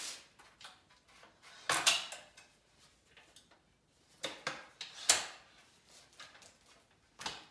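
Metal tubes and legs of a half of a DeWalt rolling table saw stand being handled and set down, giving a few sharp clanks and knocks, the loudest about two and five seconds in.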